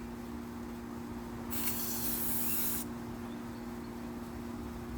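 A short hiss of air escaping at the tire valve about a second and a half in, lasting just over a second, as the inflator's hose is attached to the valve stem. A steady low hum runs underneath.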